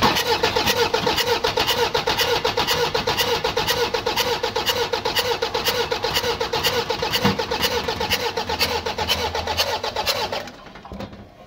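Toyota 2KD four-cylinder common-rail diesel being cranked by its starter motor, with an even, rhythmic chug and a steady starter whine. It does not catch, and the cranking stops suddenly about ten seconds in. This is a hard-start/no-start condition that the mechanic is tracing to the injectors and fuel pump.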